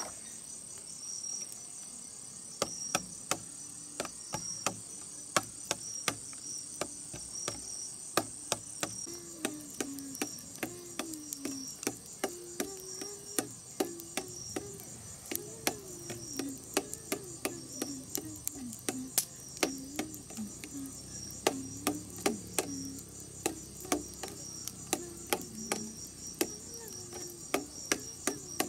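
Night insects chirring steadily and high, with a campfire crackling in sharp, irregular pops about twice a second. From about ten seconds in, frogs call in low, wavering croaks.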